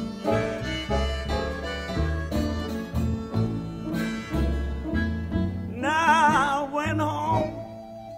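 Country blues recording with guitar and piano over a bass line, keeping a steady beat, and a wavering high melody line coming in about six seconds in.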